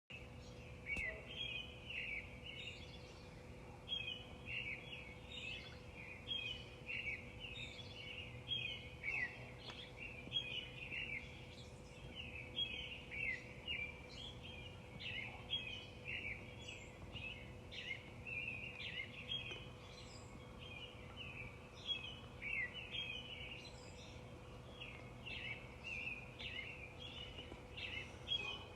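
Birds chirping: a steady run of short, high chirps, several a second, with faint background noise beneath.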